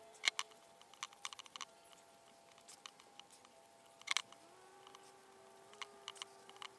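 Hand-sanding a rubber CV boot with 80-grit sandpaper: faint, irregular scratches and light clicks, the sharpest about a third of a second in and again about four seconds in.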